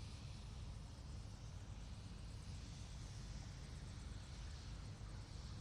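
Helicopter running steadily, heard as a faint, even low rumble with a light hiss above it.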